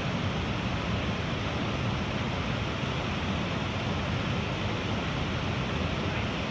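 Steady rushing of water pouring over a small cascade into a pool on Havasu Creek, an even hiss with no breaks.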